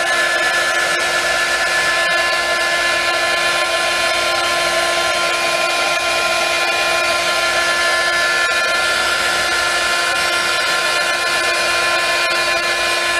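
Heat gun running steadily, blowing hot air to push alcohol ink across the wet epoxy on a tumbler: an even rush of air with a steady whine over it.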